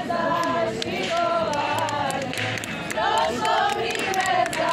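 A group of women singing a folk song together, several voices holding and gliding between notes, with scattered sharp clicks throughout.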